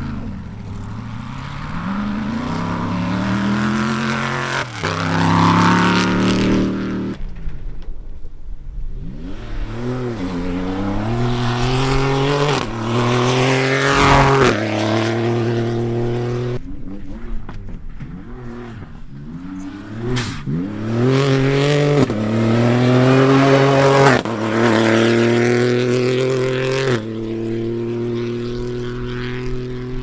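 Cross-country rally race cars on a dirt road, accelerating hard through the gears. The engine note climbs, then drops at each upshift, over several separate runs, with one car sweeping close past about fourteen seconds in.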